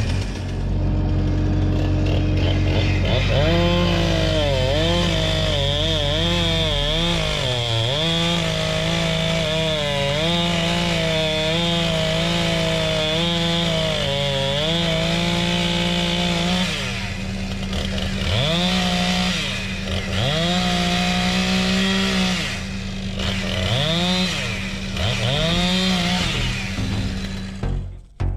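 Chainsaw running, coming in about three seconds in. Its pitch dips and rises again and again as it is throttled and loaded in the cut, and near the end it makes separate rev-ups that rise and fall. Under it, a mini excavator engine idles steadily.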